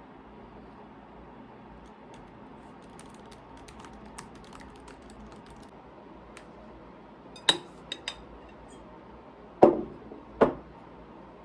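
Small clicks and taps over a steady room hiss, then two louder knocks near the end, like objects being set down on a hard surface.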